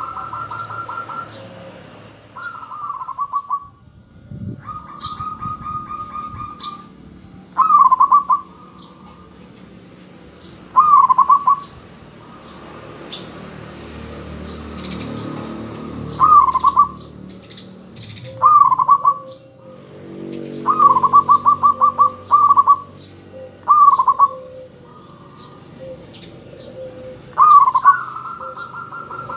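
Zebra dove (perkutut) cooing: about ten short phrases, each a quick run of staccato notes lasting about a second, repeated every few seconds.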